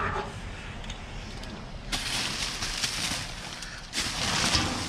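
Plastic garbage bags rustling and crinkling as they are handled. The crinkling starts suddenly about two seconds in, pauses briefly, and starts again near the end.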